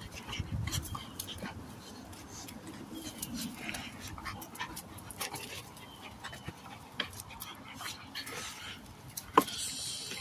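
Pitbull and Malinois puppies playing, with soft dog noises and scattered clicks and knocks. One sharp knock comes about nine seconds in.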